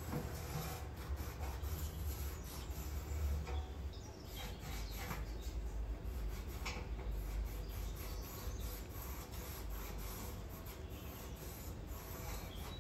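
Irregular scraping and rubbing sounds over a low steady rumble.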